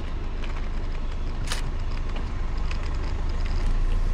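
Steady low rumble of a car's engine and tyres, heard from inside the cabin while driving slowly, with a few light clicks and one sharp click about a second and a half in.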